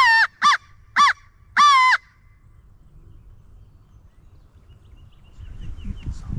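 Four loud crow-like caws in the first two seconds, the first and last drawn out and the middle two short. A low rustling starts building near the end.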